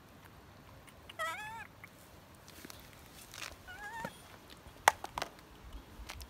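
Baby macaque giving two short, high, wavering coo calls, the first about a second in and a shorter one about four seconds in. Two sharp clicks follow near the end.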